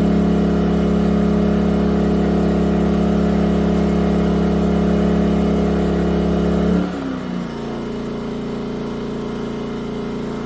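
Yamaha EF2000iS inverter generator's small single-cylinder four-stroke engine running steadily on propane; about seven seconds in its speed drops over half a second and it settles into a lower, slightly quieter run.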